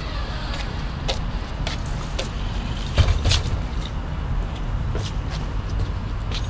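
Street ambience: a steady low rumble of traffic, with scattered sharp clicks and taps and one heavier thump about three seconds in.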